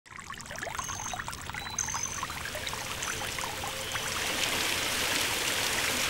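Fountain water trickling and splashing, with many small drips and splashes; it grows louder and denser about four seconds in, as the sound of falling spray fills out.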